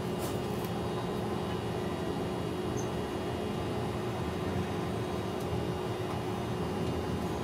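Steady mechanical hum: a constant low drone with one even tone through it, unchanging throughout, with a couple of faint clicks near the start.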